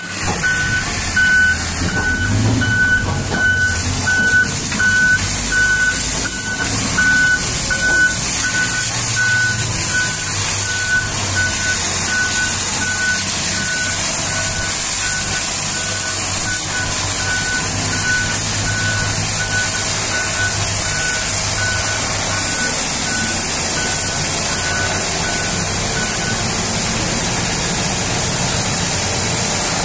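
A vehicle's reversing alarm beeping at one steady pitch, a little over once a second, growing fainter and stopping about 26 seconds in. Under it run a heavy diesel engine's low hum and the steady hiss of a pressure-washer jet on a Komatsu HD785 haul truck.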